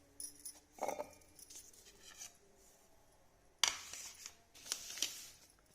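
Kitchen utensils being handled: a few short clinks and scrapes in three brief spells, about a second in, near four seconds and around five seconds. No mixer grinder is running.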